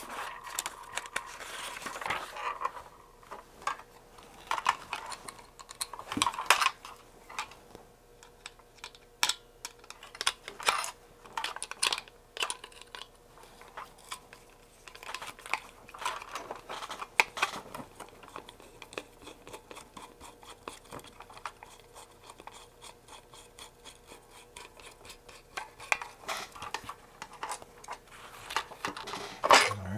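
Hand assembly of a plastic robot kit: a screwdriver turning small metal screws, with scattered clicks, taps and rattles of screws and plastic parts being handled. A faint steady hum runs underneath.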